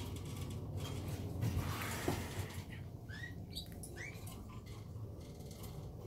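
Caged canaries giving a few short chirping calls, about four quick rising chirps in the middle, over a steady low hum, with light scratching and clicks from the cage before them.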